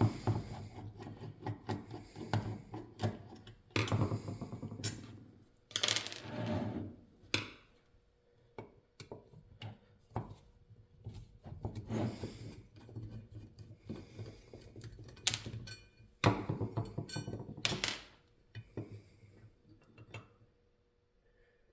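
Irregular clicks, knocks and scrapes as an antique coffee grinder's metal parts are unscrewed, pulled off and set down by hand during teardown; the parts are coming apart easily.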